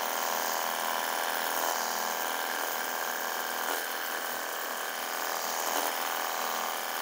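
Cordless 48V battery pressure washer running steadily: its electric pump motor gives a steady buzzing whine, over the hiss of shampoo foam spraying from the foam-bottle attachment. It is a low-pressure washer, which the owner reckons gives only about 20–30 PSI.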